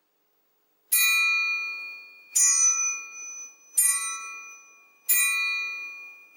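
Metal triangle struck four times, about once every second and a half, each strike ringing out with a bright, high shimmer that slowly fades. Another strike comes right at the end.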